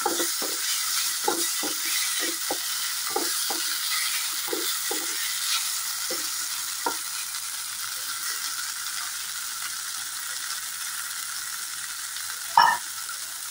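Mushroom and potato pieces sizzling steadily in hot mustard-oil masala in a coated kadai as they are fried down. A wooden spatula scrapes and stirs them in a run of short strokes over the first half. A single sharp knock comes near the end.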